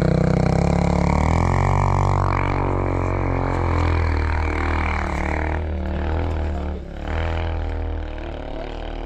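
Pit bike engine running with a steady drone, its pitch shifting a little as the throttle changes. It dips briefly about three quarters of the way in.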